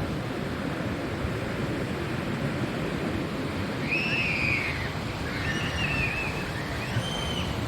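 Ocean surf washing steadily against the shore. A bird gives three short arching calls over it, about halfway through and near the end.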